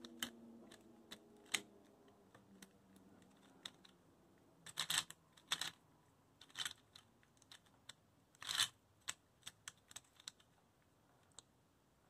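Faint, irregular clicks and clacks of a plastic 2x2 gear cube being turned by hand, its gear pieces knocking as the faces rotate, with a few louder clacks near the middle and later on.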